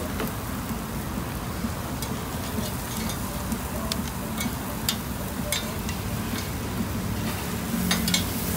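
A knife chopping and scraping grilled king oyster mushroom chunks on a cutting board: scattered sharp taps, with a quick cluster near the end, over a steady background hiss.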